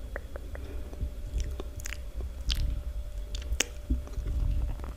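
Close-miked ASMR mouth sounds: a scattered run of short, wet clicks and smacks at irregular intervals.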